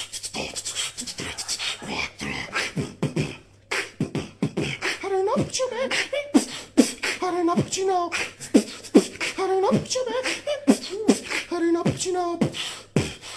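A man beatboxing: a fast, steady rhythm of percussive mouth sounds (kick, snare and hi-hat imitations), with a pitched vocal line joining in about five seconds in and repeating along with the beat.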